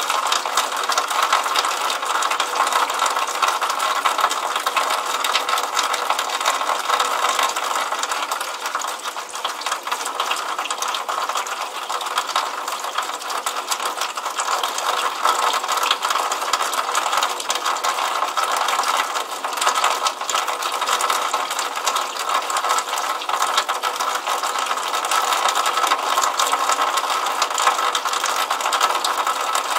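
Water running from the outlet of a drainpipe downspout and splashing into a puddle below: a steady, dense, fast patter.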